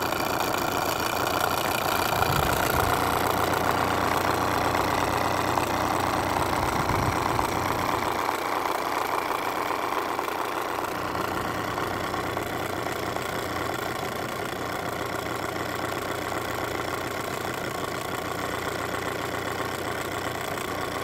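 Small Jean Comby UNIS live-steam toy engine running steadily under gas firing, a fast even chuffing clatter over a steady hiss.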